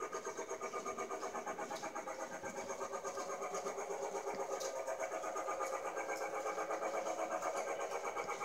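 Toy train's small motor running steadily, with a rapid, even pulsing of about five or six beats a second.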